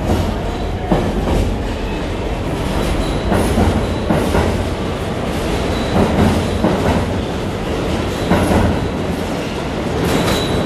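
An R46 subway train on the N line pulls out of the station and runs off into the tunnel. Under a steady rumble its wheels clack over rail joints every second or two.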